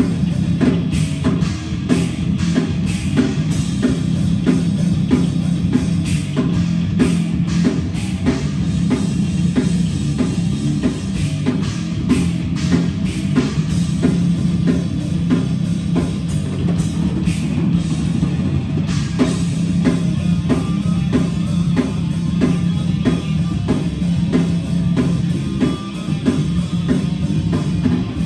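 Heavy metal band playing live: distorted electric guitar and bass over a drum kit, with steady regular drum hits.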